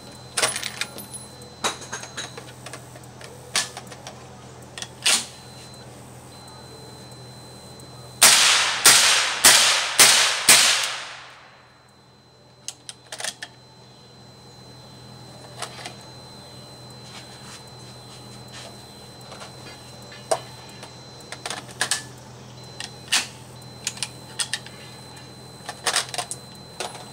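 Five suppressed gunshots in quick succession, about two a second, fired through a DuraCoat-coated suppressor, each a sharp crack with a short fading tail.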